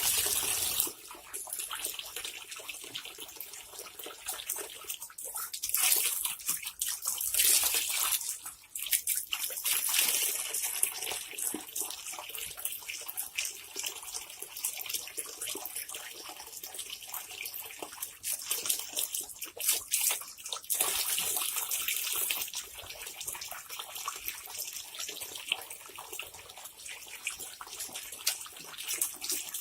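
Water running from a tap, with louder bursts of splashing every few seconds as a Labrador snaps and bites at the stream.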